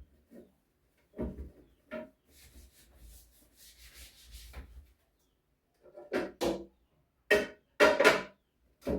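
Refrigerator interior being wiped with a cloth, a hissing rubbing sound, between several short knocks and clatters of fridge parts being handled. The clatters near the end are the loudest.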